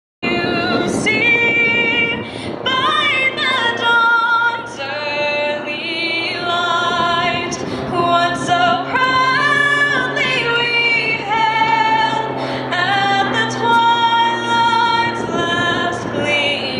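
A woman singing with long, wavering held notes over a musical accompaniment; it starts abruptly just after the opening.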